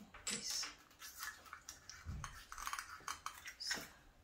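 Small metal furniture fittings, barrel nuts and bolts, clicking and clinking as they are handled and fitted into the holes of a wooden table frame. The clicks are irregular, with a few sharper ones near the start and near the end.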